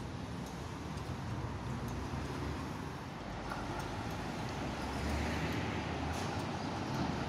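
Road traffic noise, with a box truck's engine drawing closer and getting louder from about five seconds in.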